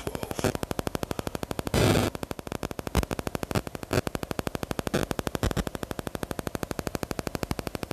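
Rapid, evenly spaced electronic clicks, more than ten a second, like radio or digital interference on the recording, with a short louder burst of noise about two seconds in.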